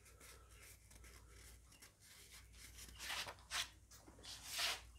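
Faint rubbing and scuffing of hands handling small parts: three short scuffs from about three seconds in, over a low steady hum.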